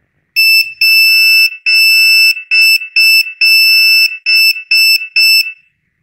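Piezo buzzer on an Arduino Nano Morse encoder beeping out dot, dash, dash, dot, dot, dash, dot, dot, dot, which spells the name 'Anas' in Morse code. The nine steady, high-pitched beeps come as short and long tones with even gaps.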